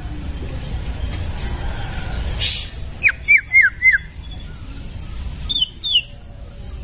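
White-rumped shama (murai batu) singing: four quick falling whistled notes about three seconds in, then a pair of higher falling notes near the end, with short raspy notes between, over a steady low rumble.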